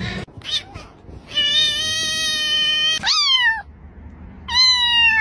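Cat meowing: one long, level-pitched meow, then two shorter meows that fall in pitch.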